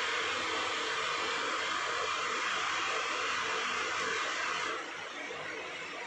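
Steady rushing hiss with no distinct strokes, dropping to a softer level about five seconds in.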